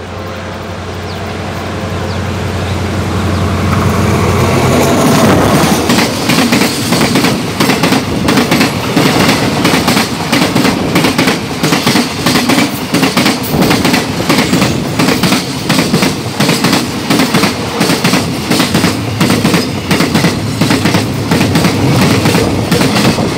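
Alsthom diesel-electric locomotive engine humming as it approaches and grows louder, passing about five seconds in. A long train of oil tank wagons follows at speed, the wheels clacking rapidly over the rail joints.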